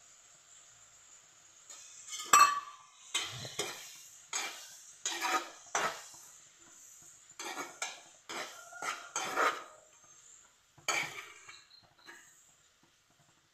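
A metal spatula scraping and stirring chopped onion, tomato and capsicum around a non-stick kadai, in about a dozen irregular strokes that stop near the end, over a faint steady sizzle of the vegetables frying.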